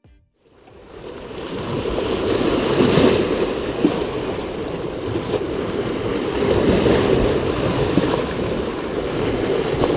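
Sea waves washing in with wind buffeting the microphone, fading in about a second in and then holding steady.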